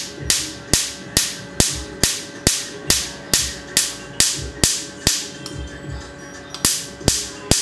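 Tattoo-removal laser firing pulses into skin: sharp snaps about two a second, each pulse a loud crack as it hits the ink, with a pause of about a second and a half near the end before the snapping resumes.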